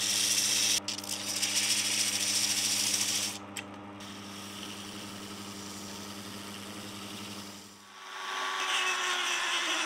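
Bench disc sander's electric motor humming steadily while a cast epoxy-resin spacer is pressed against the spinning sanding disc, giving a loud gritty hiss for about three seconds. The motor then runs on alone, quieter. About eight seconds in the hum stops and a rougher scraping rasp of the spacer being worked by hand follows.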